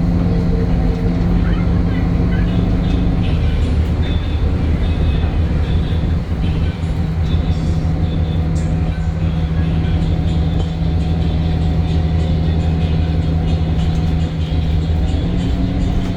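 DAF Euro 5 diesel engine of a Temsa Avenue LF 12 city bus running steadily while under way. Its note drops about three seconds in and rises again near the end.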